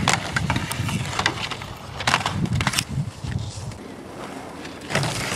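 Skis sliding and scraping over a terrain-park box and on hard-packed snow, with a few sharp clacks about two and three seconds in.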